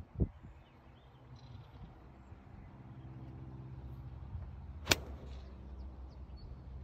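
A 6-iron striking a golf ball once: a single sharp crack about five seconds in. Under it runs a steady low engine hum, and there is a dull thump just after the start.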